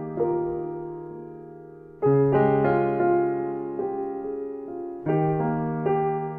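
Slow solo piano background music: soft chords struck about every three seconds, with a few higher notes added after each, left to ring and fade.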